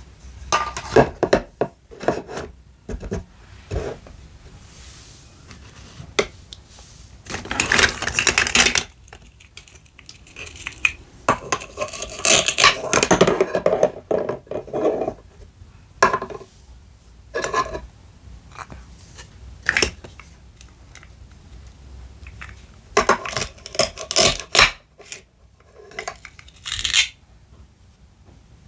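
Small toy kitchenware clinking and clattering as it is handled: scattered sharp clicks and knocks, with longer rattling stretches about eight seconds in and again from about twelve to fifteen seconds.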